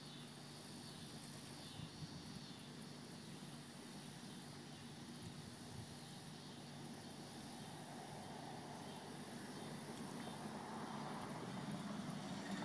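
Steady outdoor background noise with insects calling high in repeated spells a second or two long. A low rumbling noise swells louder over the last few seconds.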